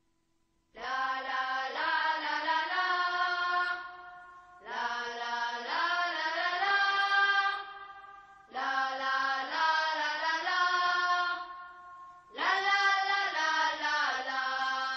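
Background music: four slow phrases of held chords, each lasting about three and a half seconds and fading before the next begins.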